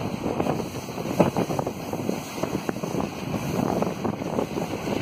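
WDM3D diesel-electric locomotive's ALCO-type diesel engine chugging under power as it hauls the train, heard from a carriage window with wind buffeting the microphone.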